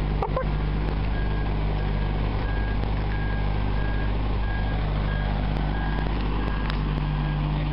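A heavy machine's backup alarm beeping evenly, about one beep every two-thirds of a second, over its engine running steadily.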